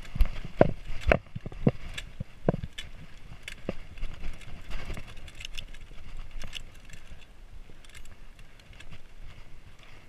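Mountain bike rolling over a rocky dirt trail: tyres crunching on gravel and stones, with sharp knocks and rattles from the bike as it hits rocks. The knocks come thick and fast over the first few seconds, then ease to a steadier rolling noise.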